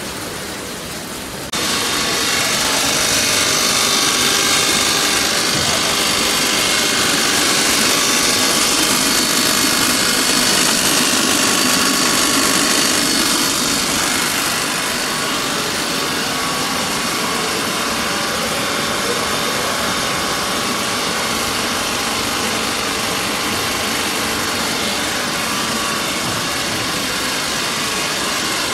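Peanut processing machinery running: a steady, dense mechanical whir with a hum of motors. It gets louder about a second and a half in.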